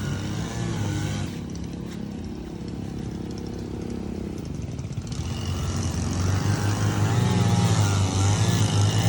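A motor engine running with a steady hum that grows louder about halfway through.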